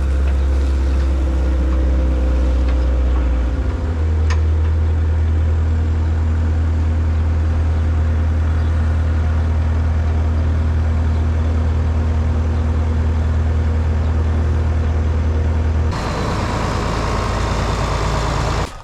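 John Deere 4430 tractor's six-cylinder diesel engine running steadily close by. Its note steps up a little about four seconds in, changes again near the end, then cuts off.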